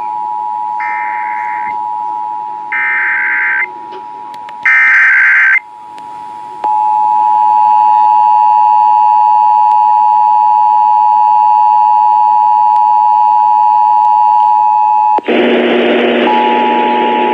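Emergency Alert System tones from a required monthly test coming over a radio broadcast. Three roughly one-second warbling data bursts of the SAME header play about two seconds apart over a steady tone, followed from about seven seconds in by the loud steady two-tone attention signal. About fifteen seconds in the tone gives way to a burst of hiss, then the tone comes back under the hiss.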